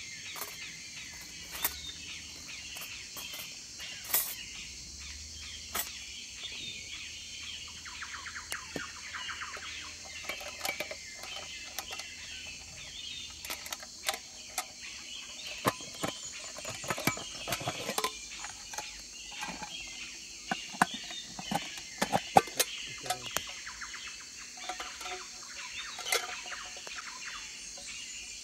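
Steady high chirping of birds and insects, with many scattered clicks and knocks from a metal cooking pot being handled, thickest and loudest through the middle of the stretch.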